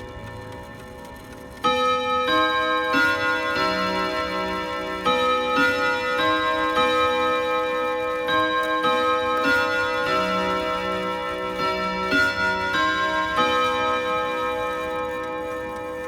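Odo clock ticking, then about two seconds in its chime starts playing a melody of ringing, overlapping bell-like notes that continues almost to the end.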